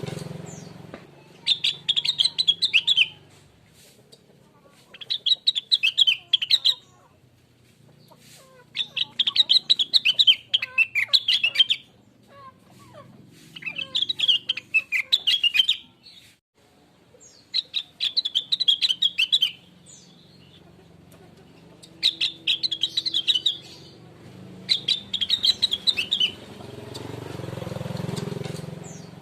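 Rengganis (cucak wilis) songbird singing a series of seven rapid twittering phrases, each a couple of seconds long with short pauses between. A low rumble fades at the start and swells again near the end.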